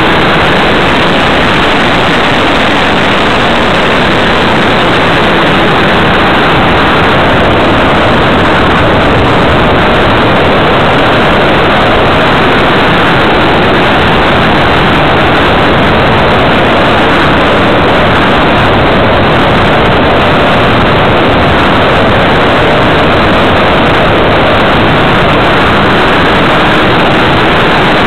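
Loud, steady rush of air over the microphone of a camera riding on a radio-controlled model plane in flight, with no clear motor tone.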